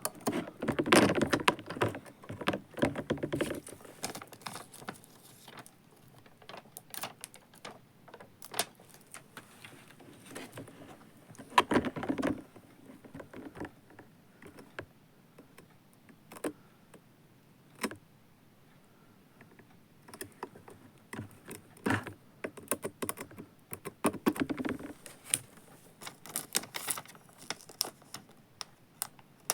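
Hands handling small parts of a robot vacuum cleaner: irregular small clicks and taps, with a few louder bursts of rustling and rattling near the start, about twelve seconds in and near the end.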